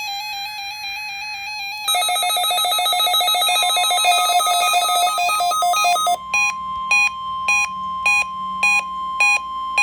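Several weather alert radios, among them a Reecom R1650, sounding their alarms, set off by the National Weather Service warning alarm tone test. A fast warbling alarm comes first. A louder pulsing alarm joins about two seconds in, and a steady tone starts under it a little later. From about six seconds, one receiver beeps in a regular pattern, a little under twice a second.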